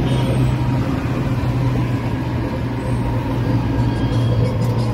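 A vehicle engine running with a steady low hum, under the noise of city street traffic.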